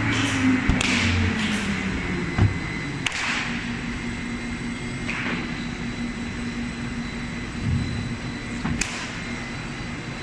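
Spindle veneer rotary lathe running: a steady motor hum with short passes of hissing noise and one sharp knock about two and a half seconds in.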